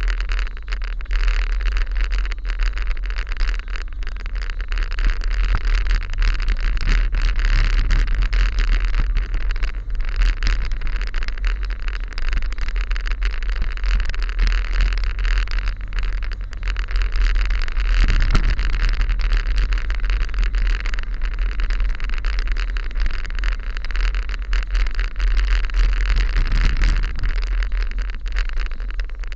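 A car driving at low speed: a steady low rumble with a hiss of road noise, unchanging throughout.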